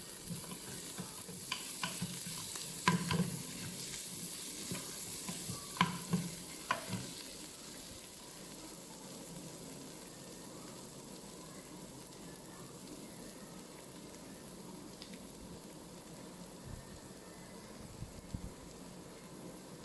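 Mutton varuval sizzling in the cooker pot while a spatula stirs it, with several sharp knocks of the spatula against the pot in the first seven seconds or so. After that only a quieter, steady sizzle from the pot's leftover heat remains.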